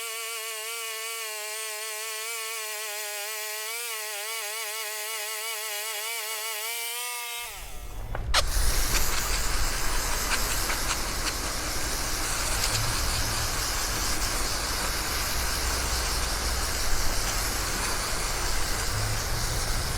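Sawmill running: a whining tone that wavers in pitch, then, after an abrupt change about seven seconds in, a steady, louder engine rumble with hiss.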